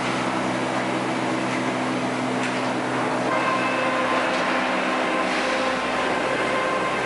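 Sawmill machinery running steadily: a constant mechanical hum with several held whining tones, and new higher-pitched whines coming in about three seconds in.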